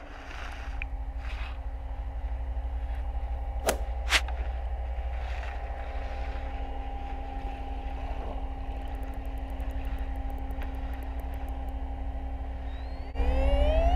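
Underwater sound around feeding killer whales: a steady low hum and rumble, as of a boat engine carried through the water. Two sharp clicks come about 4 s in, and a fast, even train of faint high clicks follows a few seconds later. Near the end a louder rising, pitched call with overtones sounds, typical of an orca call.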